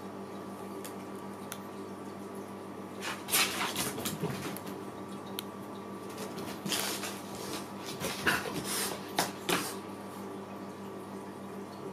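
Clusters of scuffling, knocks and scrabbling on a hard floor, starting about three seconds in and ending shortly before the end, from cats pouncing at and chasing a small toy. A steady low hum runs underneath.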